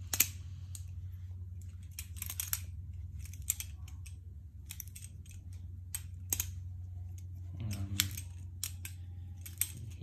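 Marcolo C94 balisong trainer being flipped, its G10-and-aluminium handles clacking against the stainless steel trainer blade and pivot in quick, irregular clicks. The clicks are heard over a low steady hum.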